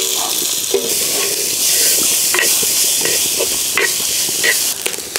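A wooden spatula stirring cooked green gram in a clay pot, scraping the pot about six times, over a steady sizzle from the hot tempering.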